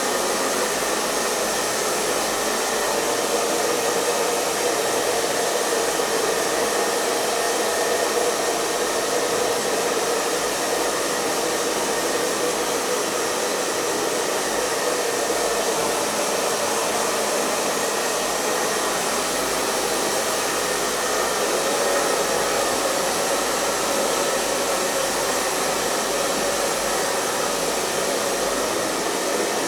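Hair dryer running continuously at a steady speed: an even, unchanging rush of blown air and motor noise, with a faint steady whine on top.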